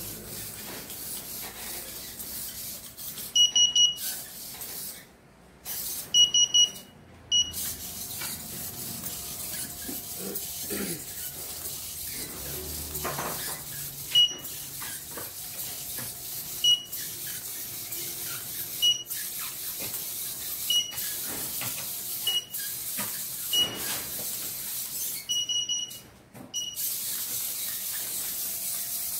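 Short high electronic beeps, plausibly from the Arduino quadruped spider robot's buzzer, over a steady hiss. Some beeps come singly about every two seconds, and some in quick runs of three.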